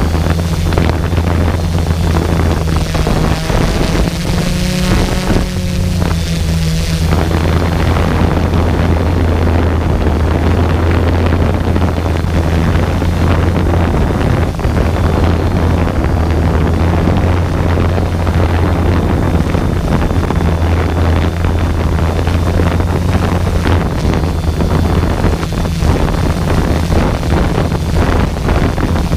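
Multirotor drone's electric motors and propellers humming loudly and steadily right by the microphone, with wind buffeting it. For the first several seconds the pitch wavers up and down, then settles.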